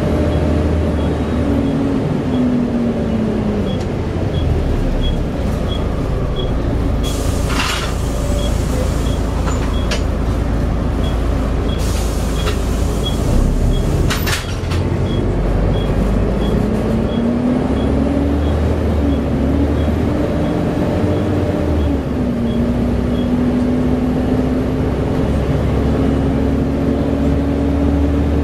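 Volvo B7TL double-decker bus under way, its diesel engine and ZF automatic gearbox droning, with the cooling fan's loud 'hoover' whine. The engine note falls as the bus eases off, and there are short air hisses about seven and fourteen seconds in. The note then climbs again as it pulls away and steps down with a gear change about twenty-two seconds in. A light regular ticking runs throughout.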